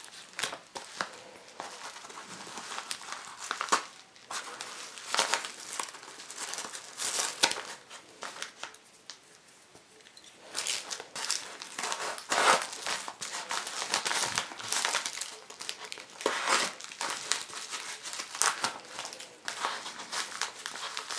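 Yellow padded paper mailer being handled and opened by hand: irregular crinkling and rustling of the paper with some tearing, easing off for a couple of seconds about halfway through.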